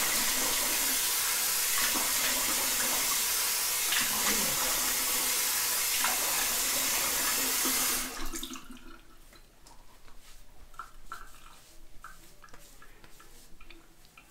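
Faucet running hard into a sink while the shaver rinses off; the water shuts off suddenly about eight seconds in, leaving a few quieter scattered small sounds.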